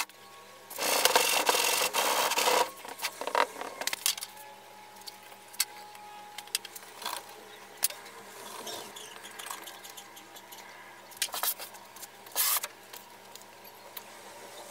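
Hands scraping and packing loose red sand in a wooden box: a loud gritty rush of sand lasting about two seconds near the start, then scattered light scrapes, taps and metal clinks as perforated metal cylinders are set down in the sand.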